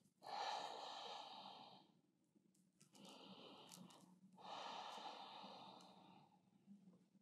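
A woman's slow, soft breathing: two long breaths of about two seconds each, the first starting just after the start and the second about four and a half seconds in, with a fainter short breath between them around three seconds.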